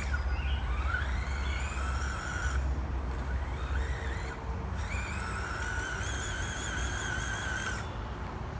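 RC crawler's electric motor and gear train whining as the throttle is worked, the pitch wavering and gliding up in stretches of a couple of seconds with short breaks, while the truck strains against a rock. A low rumble runs underneath.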